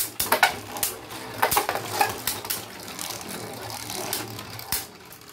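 Two Beyblade Burst spinning tops, Ace Dragon and a Wonder Valkyrie combo, whirring around a plastic stadium bowl. They clash with sharp clicks, most often in the first couple of seconds, then a few times more near the end.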